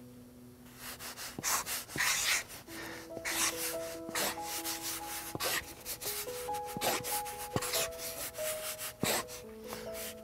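A pen writing on a card: irregular short scratching strokes that start about a second in. Soft background music with sustained notes plays underneath.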